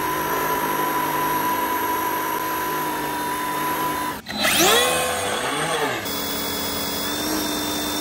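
Large-scale remote-control Formula One car doing a burnout: its motor whines at a steady pitch while the rear tyres spin on the asphalt. About halfway through there is a short rev that rises and falls.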